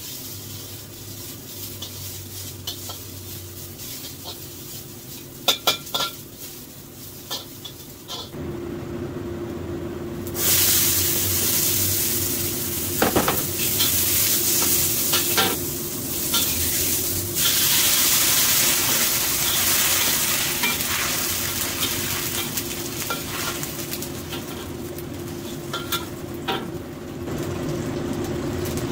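Stir-fry of carrots, green beans and tofu skin in oil in a carbon-steel wok on a gas burner, sizzling loudly from about eight seconds in. A metal spatula scrapes and clacks against the wok as the vegetables are tossed.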